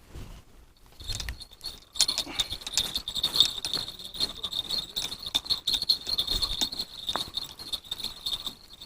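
Spinning reel being cranked to retrieve a bottom rig after a bite: a steady high whirring whine with rapid dense clicking of the reel's gearing, starting about a second in.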